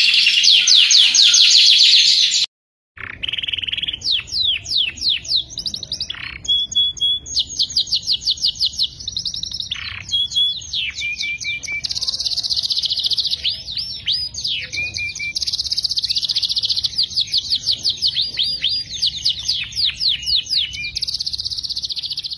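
Domestic canaries singing in long, fast rolling trills of rapidly repeated high sweeping notes, broken now and then by short held whistles. One bird's song cuts off about two and a half seconds in, and after a half-second gap another canary's song takes over.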